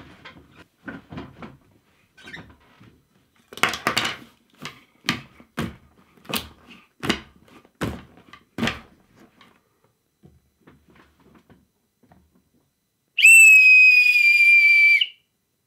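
A run of knocks and bumps as a motorcycle helmet is handled and pulled on, then a small 3D-printed plastic whistle blown hard for about two seconds: one loud, shrill, steady note at about 2,321 Hz, far too high to set a wine glass resonating.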